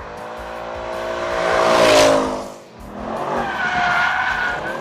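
Ford Mustang Mach 1's 5.0-litre V8 revving hard as the car drifts through a corner with its tyres squealing. The engine note climbs to a loud peak about two seconds in as the car passes, drops away sharply, then picks up again under a steady tyre squeal near the end.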